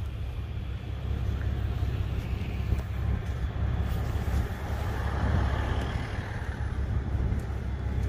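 Outdoor quayside ambience: a low, fluttering wind rumble on the phone's microphone over road traffic noise, with a broader wash of sound swelling about halfway through, as from a passing vehicle.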